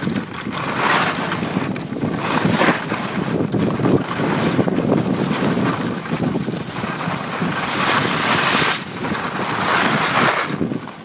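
Wind rushing over the microphone of a phone carried downhill by a skier, mixed with the hiss of skis sliding on snow, swelling and easing several times.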